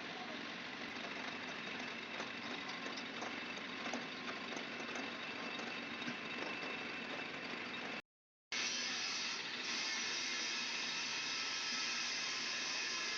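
Steady workshop hiss with faint, light metal taps through the first part, from a tool working the clutch pressure plate's fingers. About eight seconds in, the sound drops out briefly, then the steady hiss returns without the taps.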